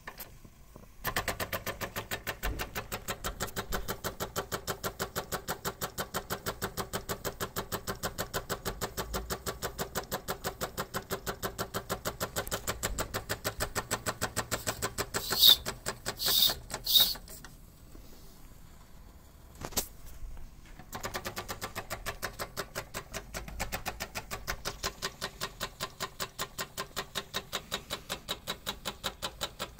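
Wilesco D6 model steam engine running, its small cylinder giving a rapid, even chuffing of several puffs a second. About halfway through a few louder, sharper bursts stand out. The chuffing then drops away for a few seconds before it picks up again.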